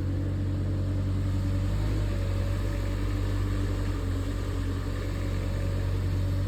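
Diesel engine of a 2-tonne mini excavator running steadily under hydraulic load, its note shifting slightly about two seconds in and again near the end as the load changes.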